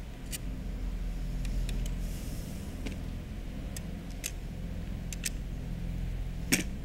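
Scattered light clicks and taps of pneumatic nail guns and a nail cartridge being handled, over a low steady hum, with a sharper click near the end.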